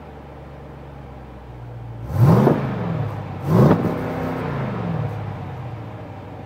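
2014 Jeep Grand Cherokee SRT's 6.4-litre HEMI V8 on its stock exhaust, idling and blipped twice, about two and three and a half seconds in, each rev climbing quickly and falling back to idle.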